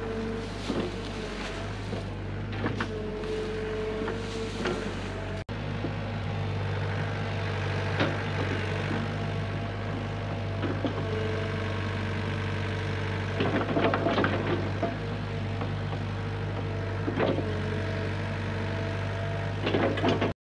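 Hyundai HX85A excavator running steadily, heard from the cab, with a higher whine in the first few seconds and scattered knocks and clanks as the bucket works in rocky ground, including a burst of them past the middle.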